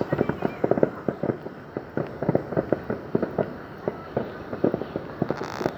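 Fireworks going off in a rapid, irregular string of bangs, several a second, with a brief hiss near the end.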